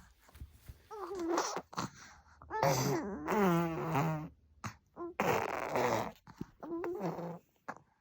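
Four-month-old baby making a string of funny vocal noises in four bursts. The longest lasts about a second and a half in the middle and has a low, wavering pitch.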